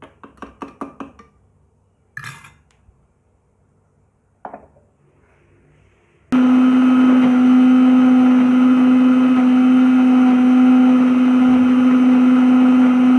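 Electric mixer grinder starts suddenly about six seconds in and runs at full speed with a loud steady hum, grinding thick mint chutney paste in its steel jar. Before it, a spoon clicks rapidly against the inside of the steel jar while stirring, then there are a clatter and a knock.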